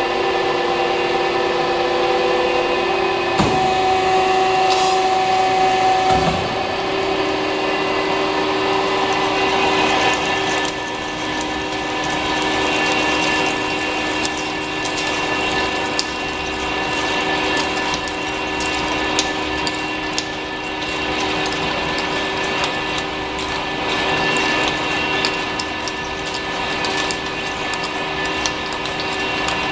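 Two-spindle CNC plate drilling machine running with a steady whine, with two clunks in the first six seconds. From about ten seconds in, its twist drills cut into a steel plate under coolant with a continuous crackle of breaking chips.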